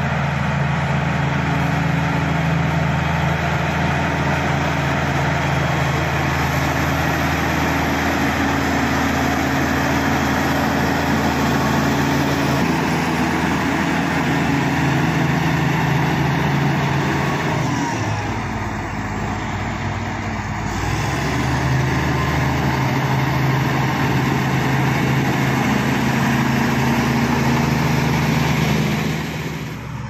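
Shantui SD16 crawler bulldozer's diesel engine running steadily under load as the blade pushes wet mud. About two-thirds of the way through the engine note drops briefly, then picks back up.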